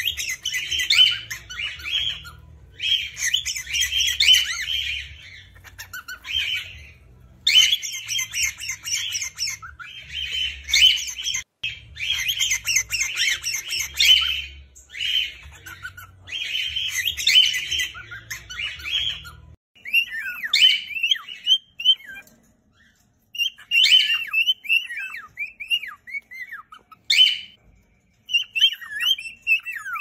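Cockatiels chirping and singing in phrases of one to two seconds with short gaps. About two-thirds of the way in, the chirping turns sparser, with short swooping notes.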